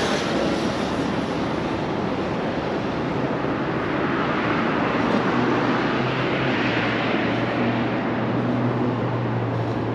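City road traffic: vehicle engines running and tyre noise as traffic passes, with a low engine hum growing stronger about halfway through.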